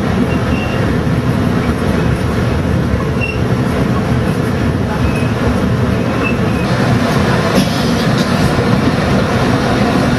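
Alishan Forest Railway narrow-gauge passenger train running on its track, heard from inside a carriage as a steady rumble of wheels and carriage. A few brief, faint high squeaks come through it.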